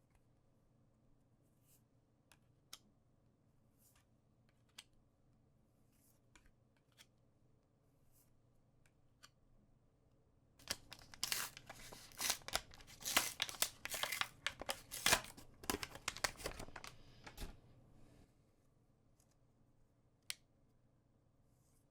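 Trading-card packaging being torn and crinkled: a dense run of crackling in the middle, lasting about seven seconds. Before and after it come scattered single clicks from handling the packaging and cards.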